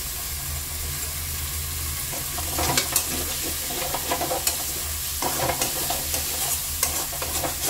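Potatoes and spice paste sizzling in oil in an aluminium kadai while a metal spatula stirs and scrapes the pan, with sharp metal clinks now and then, over a low steady hum.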